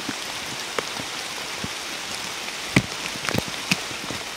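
Steady rain falling on the forest canopy and undergrowth: an even hiss with scattered sharper, closer hits, the loudest a little under three seconds in.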